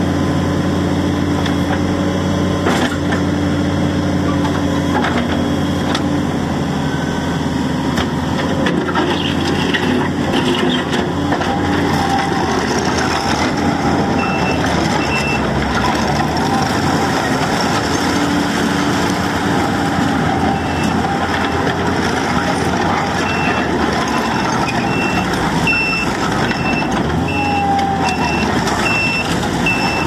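Takeuchi TL8 compact track loader's diesel engine running steadily as the machine works its bucket and drives across gravel. A backup alarm beeps at an even pace briefly around halfway and again through the last several seconds.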